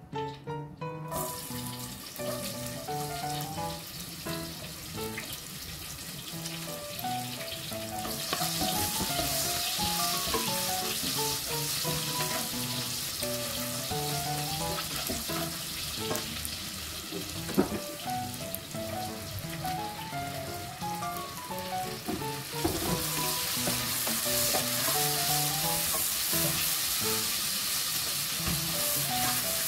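Sliced shallots and garlic frying in hot oil in a pot, with a steady sizzle that grows louder about eight seconds in and again over the last seven seconds as more ingredients go in. A single sharp clack comes a little past the middle, and background piano music plays throughout.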